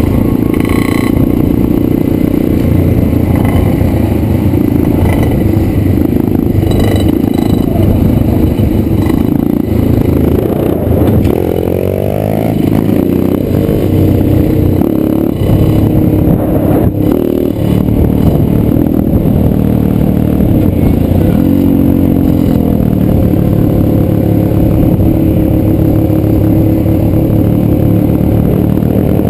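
Dirt bike engine running under way, heard from on the bike itself. The revs climb about twelve seconds in, drop back a little after twenty seconds, and climb again near the end.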